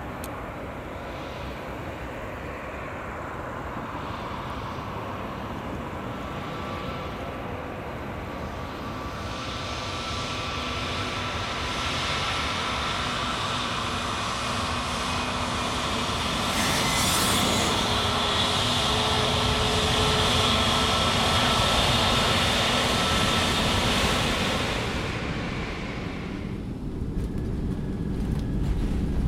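Turbofan engines of a twin-engine jet airliner on landing approach. The roar and a steady whine build as it comes close, stay loudest for several seconds, then fall away. Near the end a lower rumble takes over.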